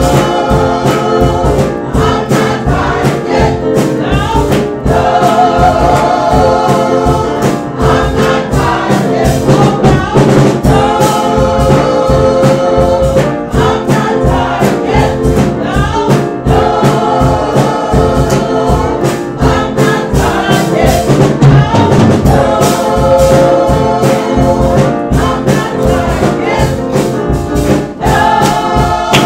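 Gospel choir singing with instrumental accompaniment and a steady beat, in phrases a few seconds long.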